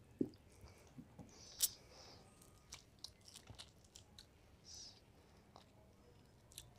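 Ripe mango slices being eaten fast: faint wet chewing, sucking and lip-smacking, with scattered small clicks and a sharper smack about one and a half seconds in.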